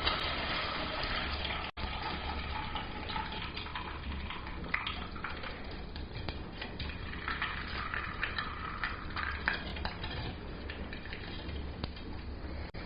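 Hot forged steel hook dipped into boiled linseed oil, sizzling and crackling as the oil burns onto the metal, with a steady low hum underneath.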